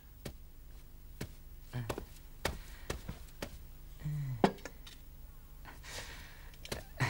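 Scattered light knocks and clinks of serving plates being set down on a dining table, with a short low voiced grunt about four seconds in.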